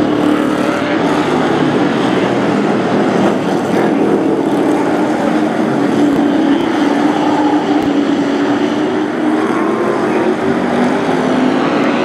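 Engines of several Super Pro race trucks running hard on a short oval, a loud steady drone whose pitch drifts slightly up and down as the trucks go around.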